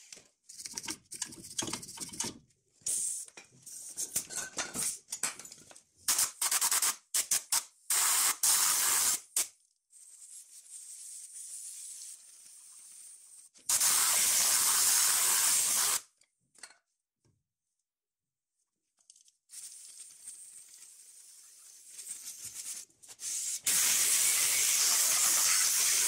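A wire brush scrubbing a cast-iron brake caliper in short rasping strokes, followed by long hissing sprays over the caliper to clean it.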